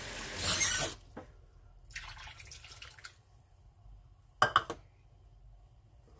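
Water running in a steady stream that cuts off about a second in, then a fainter trickle as it is poured from a measuring cup over frozen baby carrots in a ceramic dish. A couple of light knocks follow about four and a half seconds in.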